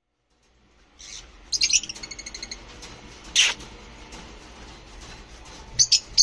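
Persian kittens mewing: a few thin, high-pitched mews about a second and a half in, a sharp squeak in the middle, and two quick high calls near the end, over faint room noise.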